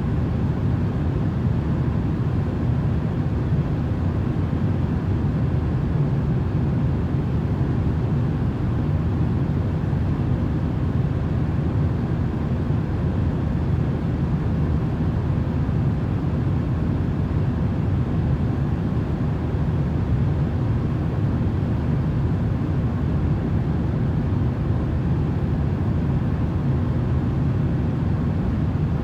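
Steady airplane cabin noise used as sleep white noise: an even, low rush with a faint hum, unchanging throughout.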